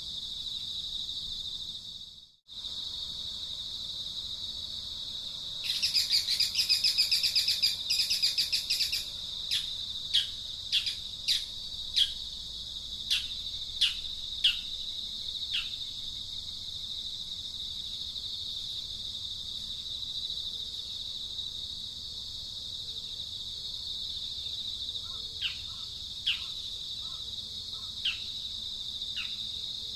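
A steady, high-pitched insect drone, with birds calling over it. First comes a loud, rapid trill lasting about three seconds. Then a string of short notes, each sliding downward, arrives roughly once a second; they pause, then return near the end.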